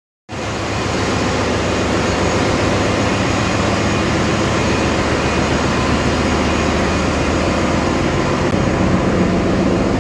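Ship's engine-room machinery running: a loud, steady drone with a low hum underneath, cutting in abruptly at the start.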